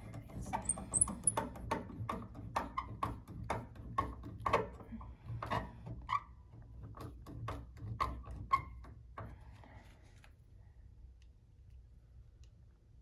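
Screwdriver driving a screw into a Steinway piano's pedal box: an irregular run of clicks and creaks with a few short squeaks as the screw turns, dying down about nine seconds in.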